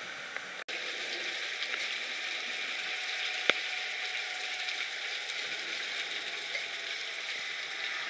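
Rain falling steadily, an even hiss with scattered sharp ticks of drops striking, and one louder click about three and a half seconds in. The sound cuts out for an instant about half a second in.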